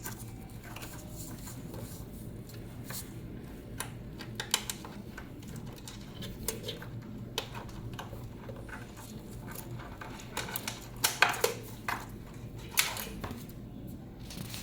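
Scattered light clicks and taps of small hard parts being handled and fitted while a CRP chamber is reinstalled in a hematology analyzer, with a quick cluster of louder clicks about two-thirds of the way in, over a steady low hum.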